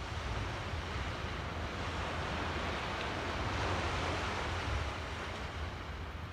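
Small waves washing up a sandy beach, swelling a little in the middle, with wind rumbling on the microphone.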